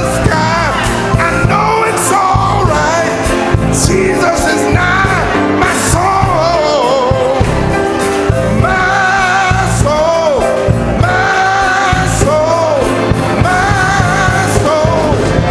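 Gospel singing with band accompaniment: several voices hold and bend sung lines over a steady drum beat with cymbals.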